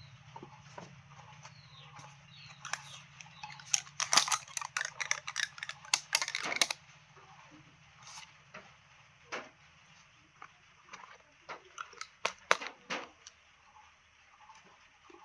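A run of sharp clicks and crackling rustles, densest and loudest from about four to seven seconds in, then scattered clicks.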